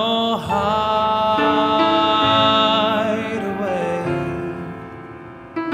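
Male voice singing a slow ballad over piano: the word "no" slides up into a long held note with vibrato, then the line falls away to "hideaway". A new rising phrase begins near the end.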